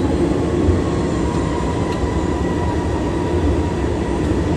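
Steady cockpit noise of an airliner holding on the runway with its engines at idle: an even low rumble with a hiss over it.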